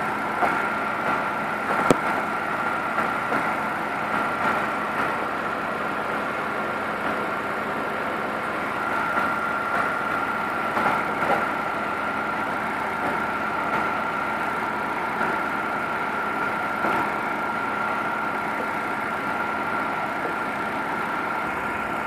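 Car engine idling with the AC compressor clutch engaged and spinning, the compressor now running because refrigerant has been added to a system that was nearly empty. A steady high tone sits over the running noise, with one sharp click about two seconds in.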